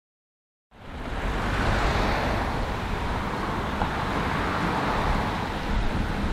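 Steady road traffic rumble, cutting in abruptly under a second in after silence.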